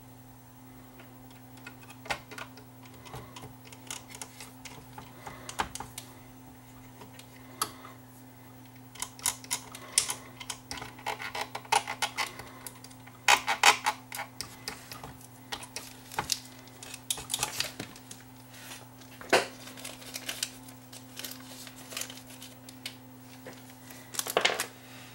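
Irregular clicks and small rattles of plastic gears being handled and snapped into place on a CD player's laser sled drive, against its sheet-metal chassis, with a steady low hum underneath. The clicks come in busy clusters about a third of the way in, and again near the end.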